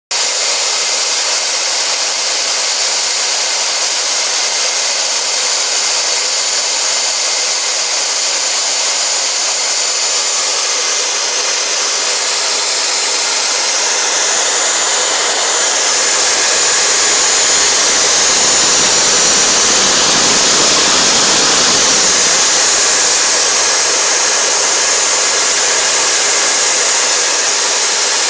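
CNC router spindle, a radial arm saw converted to a CNC router, running at high speed and cutting plastic: a steady whine and rush that grows a little louder and fuller for several seconds mid-way.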